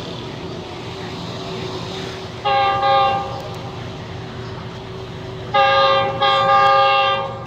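Pakistan Railways diesel locomotive's multi-note air horn: one short blast a few seconds in, then two longer blasts close together near the end, warning people on the track ahead. A steady hum of street traffic lies underneath.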